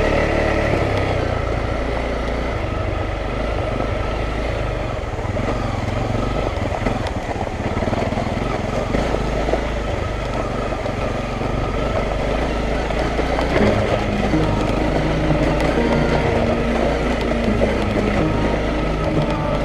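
Single-cylinder Honda dual-sport motorcycle engine running steadily on a rough rocky trail, heard from a helmet camera with wind noise mixed in. Its pitch shifts a few times in the second half.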